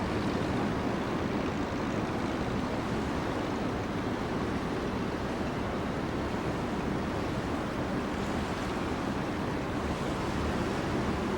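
Steady rushing noise with a low rumble, typical of wind and water, or boats, heard from the riverside.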